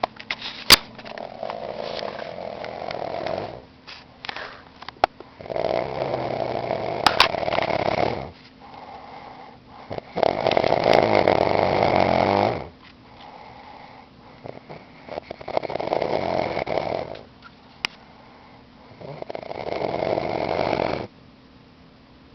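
A man snoring while asleep: five loud, rasping snores about four to five seconds apart, with quieter breathing in between. There are a few sharp clicks, the loudest about a second in.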